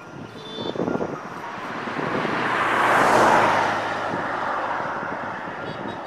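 A vehicle passing by: broad road noise that swells to a peak about three seconds in, then fades away slowly.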